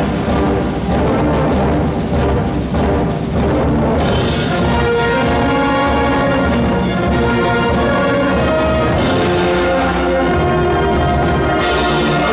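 Symphonic wind band playing a marxa cristiana, a Christian march for the Moors and Christians festival: sustained brass chords over timpani. Loud crashes ring out about four seconds in, about nine seconds in, and again near the end.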